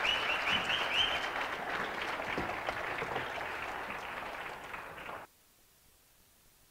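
Congregation applauding, slowly fading, then cut off abruptly about five seconds in.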